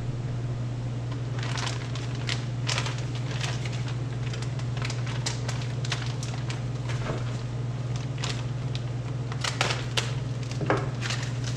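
Packaging being handled by hand: irregular crinkling and rustling, over a steady low hum.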